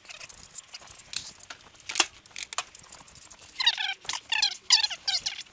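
Fast-forwarded workshop sound of threads being tapped by hand on a lathe: a run of high, squeaky chirps and sharp clicks. The loudest click comes about two seconds in, and a cluster of chirps near the end.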